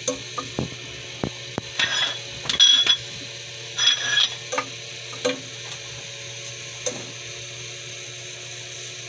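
Wooden spatula stirring and scraping garlic and onion through melted butter in a stone-coated pot, with sharp taps of the spatula on the pan and three louder scrapes in the first four seconds or so. A faint steady sizzle of the butter runs underneath, and the stirring sounds thin out after about five seconds.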